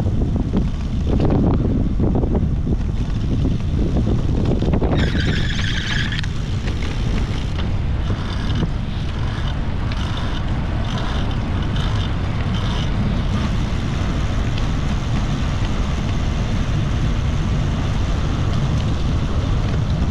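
Wind buffeting the microphone of a camera mounted on a moving bicycle, a steady low rumble mixed with tyre noise on asphalt. A brief high-pitched sound comes about five seconds in, followed by a few seconds of faint, uneven high sounds.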